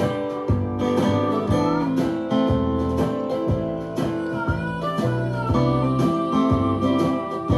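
Background music with acoustic guitar and a steady beat.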